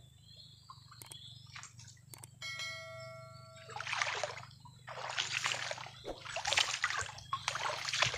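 Repeated splashing at the water's surface, starting about four seconds in and growing louder, after a brief ringing tone about two and a half seconds in.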